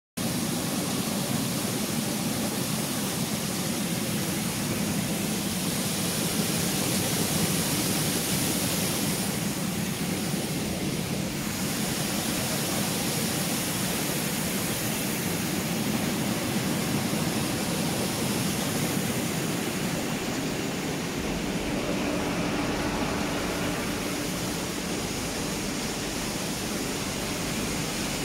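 Fruit bubble-washing line running: aerated water churning steadily in the wash tank, together with the line's conveyor machinery. About two-thirds of the way through, a deeper machine hum with a faint steady tone joins in.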